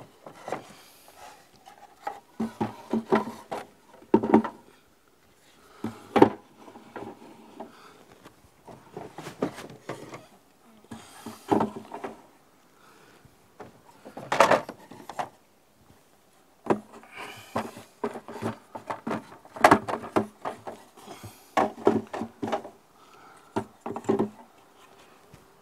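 Honey frames being set one by one into a wooden Langstroth honey super: irregular wooden knocks and scrapes, in clusters a second or two apart.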